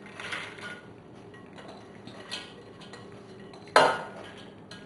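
Soaked split peas being tipped and scraped from a glass bowl into an empty stainless steel pot, with soft scattered patters and scrapes, then one sharp clink about four seconds in.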